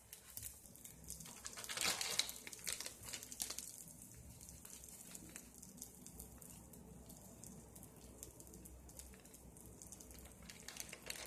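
Egg omelette frying in oil in a nonstick pan: a faint sizzle with crackles and pops, busier about two seconds in and again near the end.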